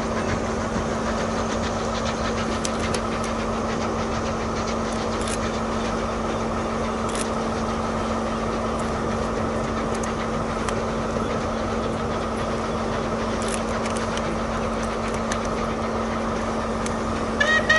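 Steady engine drone with a constant low hum, like an idling railway engine, while train wheels click now and then over the points as the coaches move away. A short honk near the end.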